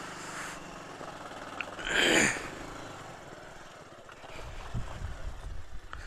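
Motorcycle ridden slowly over a rough, rocky trail, its engine low under a steady noisy rumble that grows louder after about four seconds, with a short burst of noise about two seconds in.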